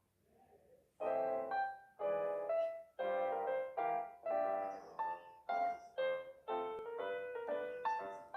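Background piano music: after a near-quiet first second, piano chords and notes are struck about twice a second, each ringing and fading.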